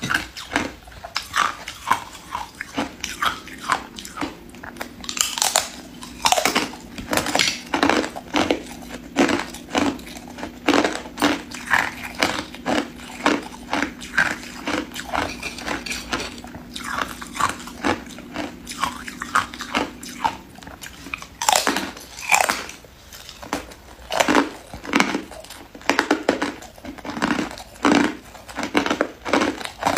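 Clear ice being bitten and chewed, a long irregular run of sharp cracks and crunches about one or two a second.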